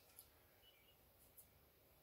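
Near silence: room tone, with two faint clicks.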